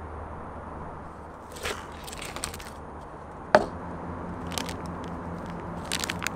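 Plastic sachets crinkling in short bursts as they are handled, with one sharp knock about halfway through as something is set down on the tabletop. A steady low hum runs underneath.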